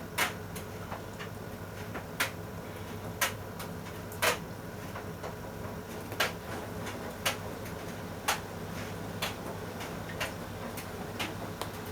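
Sharp, regular ticks, about one a second, over a low steady hum.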